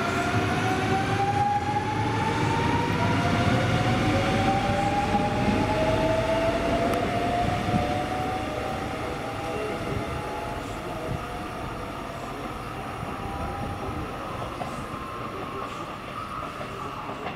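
CP series 2240 electric multiple unit pulling away and accelerating: a whine of several tones rising slowly in pitch over the rumble of wheels on rail, fading in the second half as the train recedes.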